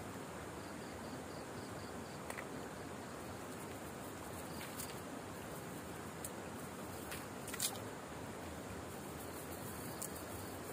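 Insects chirping faintly in a high, evenly pulsed trill over a steady low hiss, with scattered small clicks and rustles; one sharper click about three-quarters of the way through.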